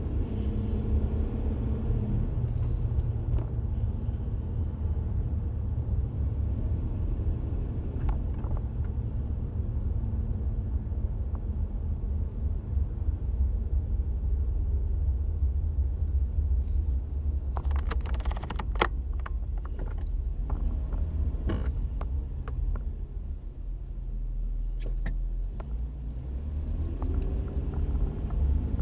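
2003 Nissan Frontier pickup running with a steady low rumble, the steering noise under investigation somewhere in the mix. A few sharp clicks come a little past the middle, and the pitch shifts slightly near the end.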